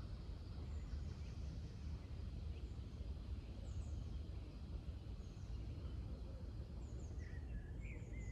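Scattered bird chirps over a steady low outdoor rumble, with a few louder chirps near the end.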